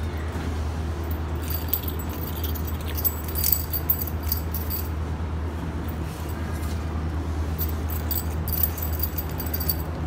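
Light metallic clicks and rattles of a ringneck parakeet's beak and claws on the wire bars of a small cage, in clusters about two seconds in and again near the end, over a steady low hum.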